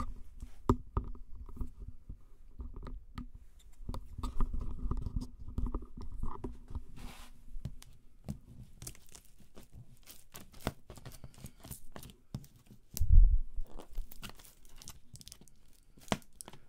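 Screwdriver prying metal staples out of a corrugated cardboard box: a run of scraping, clicking and crunching cardboard. A single heavy low thump comes about three-quarters of the way through.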